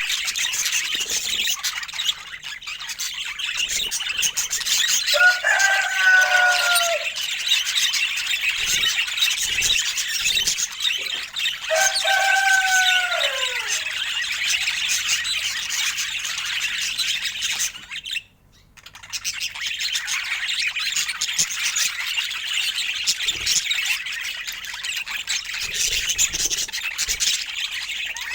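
Budgerigars chattering and warbling continuously in quick high chirps, with two longer, lower calls that fall in pitch at the end. The sound drops out for a moment about two-thirds of the way through.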